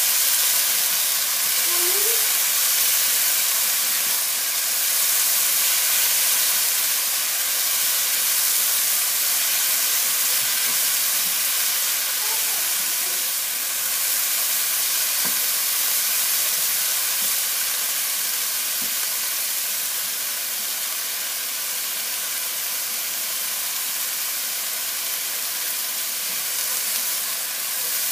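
Chicken, jalapeño and green onion sizzling steadily in a hot nonstick frying pan as they are stir-fried with a spatula.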